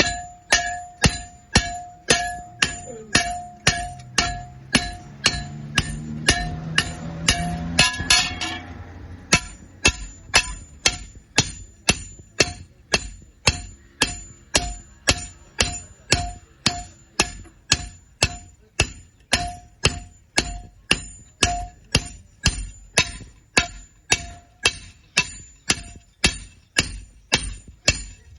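A hammer striking iron in a steady rhythm, about two blows a second, each blow ringing briefly. For a few seconds early on, a rising noisy hum swells under the blows, then stops about nine seconds in.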